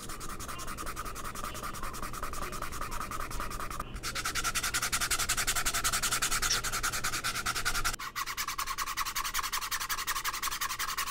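Fingertips rubbed quickly back and forth across pickleball paddle faces, a dry scratchy rubbing in three takes of about four seconds each. First comes a Franklin Ben Johns paddle whose grit has worn completely smooth, then a new Franklin Ben Johns with fresh grit, which rubs loudest, then an Electrum Pro.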